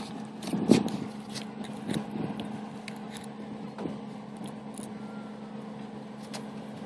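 Scattered light clicks and scrapes, the loudest about a second in: a knife blade prodding a Maryland blue crab while its claws and legs scrape on wooden dock boards. A faint steady low hum runs underneath.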